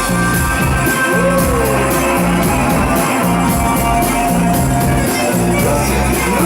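Rock band playing live, an instrumental stretch with no singing, a bass line repeating under a steady beat.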